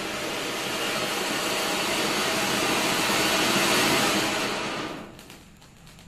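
Ground fountain firework (flowerpot) hissing steadily as it sprays sparks, growing louder, then dying away about five seconds in, followed by a few small crackles as it burns out.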